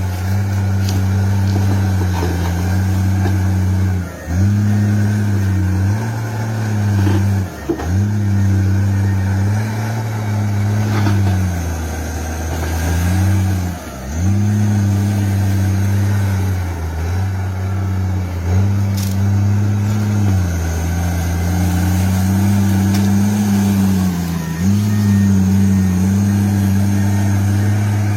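Bulldozer's diesel engine running hard while opening a road, a steady low drone that dips in pitch several times and picks up again.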